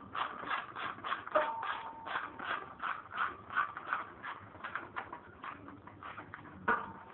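Quick irregular clicking and scraping, about three clicks a second, from hands and tools working the plastic cover off a motorcycle.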